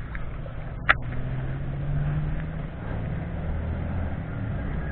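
Low steady rumble, like a distant engine, with one sharp click about a second in.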